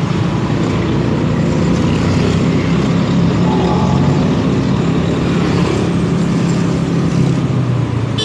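Motor vehicle engines running steadily in slow traffic, heard from a moving motor scooter: a continuous low drone with road noise.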